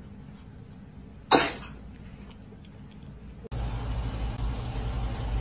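A cat sneezing once: a single sharp burst about a second in. After about three and a half seconds a steady low hum starts abruptly.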